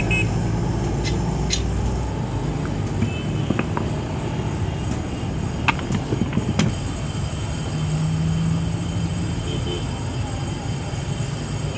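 Steady low engine-like hum of passing vehicles, with a few sharp metal clicks and knocks in the middle as steel bushings and the leaf spring are handled.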